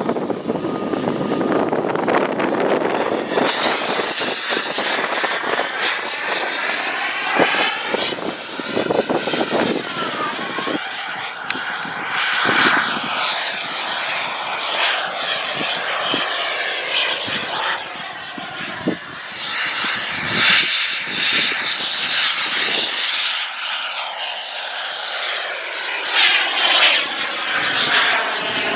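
Merlin 90 model jet turbine of an RC TOP RC Cougar in flight, a rushing jet sound with a thin high whine that dips and rises in pitch as the plane passes by. Wind buffets the microphone.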